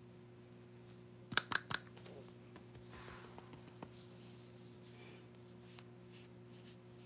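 Handling of a pressed-powder compact and puff: three quick sharp taps about a second and a half in, then faint soft dabbing and small ticks as the powder is pressed onto the skin, over a steady low hum.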